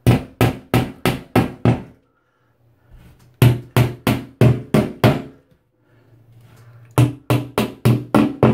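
Hammer tapping small nails into plastic drywall clip anchors for wire shelving: three quick runs of five or six sharp taps each, about three taps a second, with short pauses between as it moves from clip to clip.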